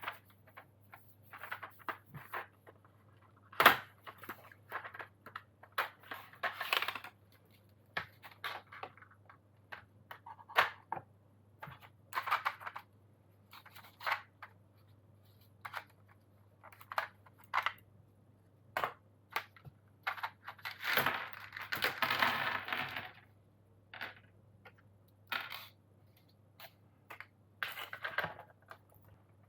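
Packaging of a box of Gateron Yellow keyboard switches being handled and opened: crinkling, rustling and clicking in short bursts, with a longer rustle about 21 seconds in. A faint steady hum lies underneath.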